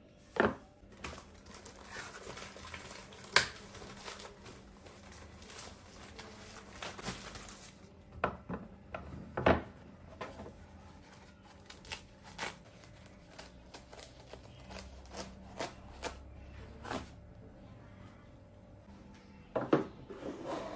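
Hands handling groceries and packaging in a small room: plastic crinkling and rustling, broken by irregular sharp clicks and knocks of items being picked up and set down. The loudest knocks come about half a second in, at about three and a half seconds and near ten seconds.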